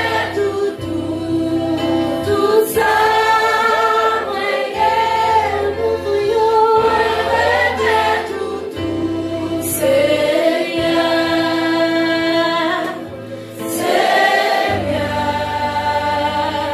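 A woman sings a gospel worship song through a microphone, with other voices joining in, over sustained low accompaniment notes.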